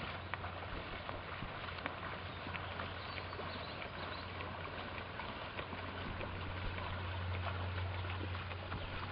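Tandem racing canoe under way: paddle blades splashing in quick strokes and water washing along the hull, growing louder as the canoe draws close. A steady low hum runs underneath.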